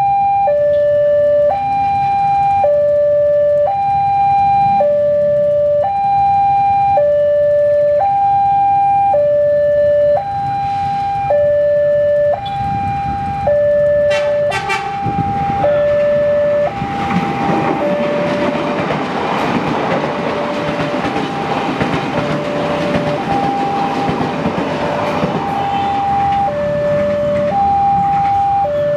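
Level-crossing warning alarm sounding a steady alternating two-tone signal, high then low, about a second each. About halfway in, the rumble of an approaching electric commuter train rises underneath it and grows to the end.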